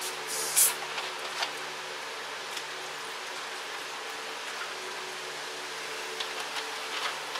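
Drink can cracked open with a short, sharp hiss about half a second in, followed by a few light clicks and clinks of handling, over a steady hum of kitchen room noise.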